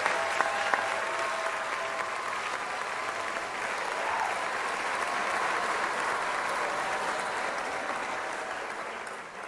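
Audience applauding both fighters, steady clapping that fades away near the end.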